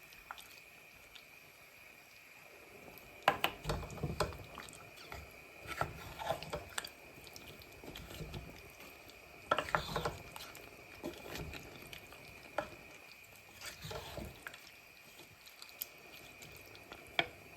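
Irregular clinks, knocks and wet stirring sounds of a spoon working a liquid curry in a cooking pot, in clusters, over a steady high-pitched hum.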